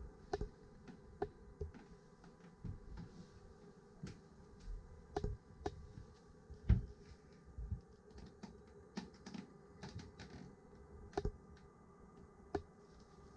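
Irregular small clicks and soft low thumps over a faint steady hum: handling and footstep noise from someone carrying a handheld camera through a boat's cabin.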